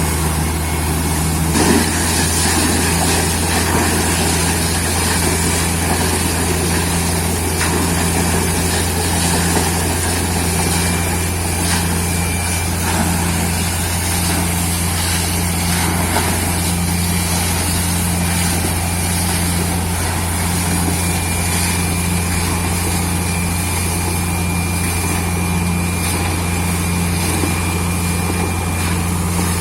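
Borewell drilling rig and its air compressor running steadily: a constant, unbroken engine drone with a deep low hum.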